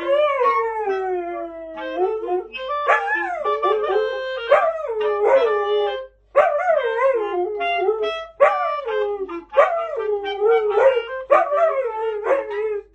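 A dog howling along with a clarinet: a string of short howls that slide up and down in pitch, over and between the clarinet's steadier held notes.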